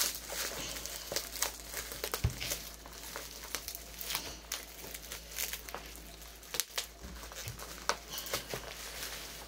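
Plastic bubble wrap crinkling and rustling as it is pulled off a box by hand, with many irregular sharp crackles.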